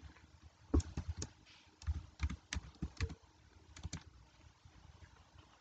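Typing on a computer keyboard: about a dozen short, irregularly spaced keystrokes, then it stops.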